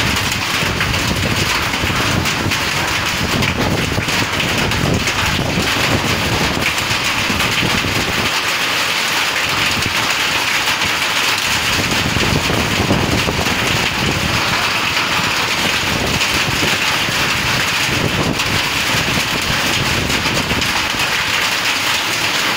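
Hailstorm: hail and heavy rain pelting the ground and plants, a loud, steady, dense patter of countless small impacts.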